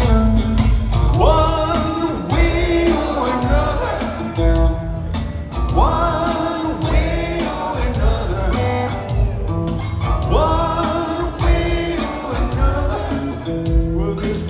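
Live rock trio of drums, bass and guitar with a male lead vocal singing a repeated phrase about every four and a half seconds, recorded from the audience on a phone.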